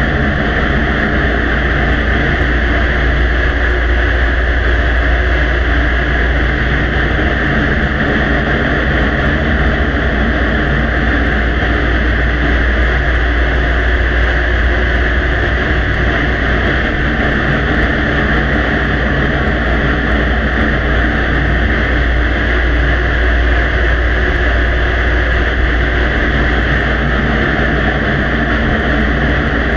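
Heavily amplified background noise from a quiet recording: a steady hiss over a low rumble, unchanging throughout, with no distinct voices or clicks standing out.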